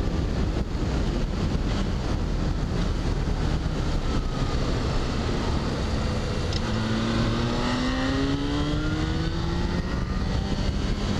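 Motorcycle engine heard from the rider's seat under heavy wind rush on the helmet camera; about two-thirds of the way in, the engine pitch rises steadily as the bike accelerates out of a curve.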